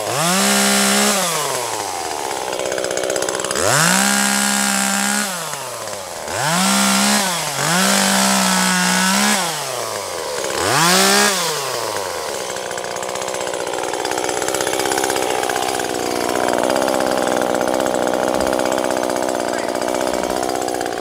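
Husqvarna T525 top-handle chainsaw, a small 27 cc two-stroke, opened to full throttle in five bursts over the first half. Each burst climbs, holds high and then drops back. For the rest of the time it idles steadily.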